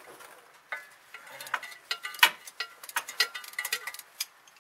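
Socket ratchet clicking in quick, uneven runs, with metal taps and light ringing, as it works a plug loose on a car's transaxle case.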